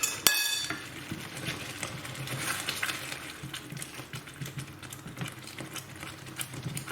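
A metal spoon clinks twice against the pan with a brief ringing tone, then light clinks and scrapes of the utensil in the pan.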